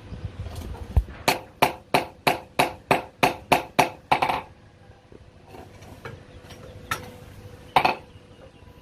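A hand hammer striking steel in a steady run of about eleven blows, roughly three a second, then two more single blows near the end.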